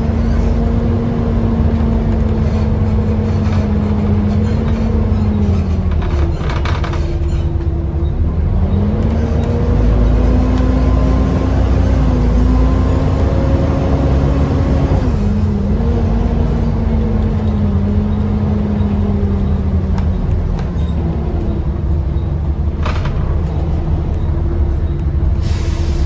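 Bus engine and drivetrain heard from inside the saloon while under way: a low rumble with a whine that climbs and then drops sharply three times, as at gear changes, with short hisses about two-thirds of the way through and again near the end. The whine is the hoover-like sound the uploader names in the title, and the bus sounds tired to him.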